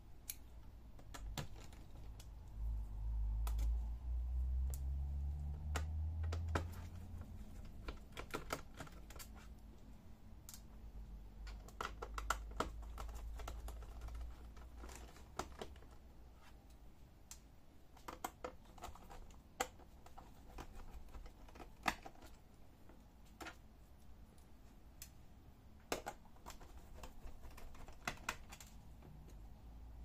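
Small screwdriver turning and clicking in the screws of a plastic laptop bottom panel as they are backed out, with scattered light clicks and taps. A low rumbling handling noise stands out for a few seconds near the start.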